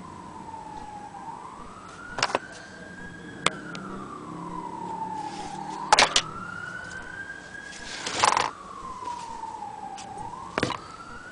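A siren wailing in the background, slowly rising and falling about once every four to five seconds. Five sharp knocks and clicks come over it as the antique Willcox & Gibbs sewing machine is handled, the loudest one about six seconds in.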